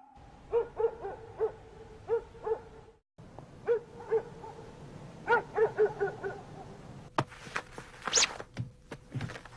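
Short, pitched animal calls, repeated in two runs of about half a dozen each. Near the end come several sharp clicks and rustles.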